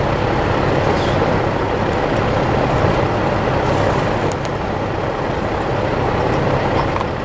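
An engine running steadily, with a few light clicks about four seconds in.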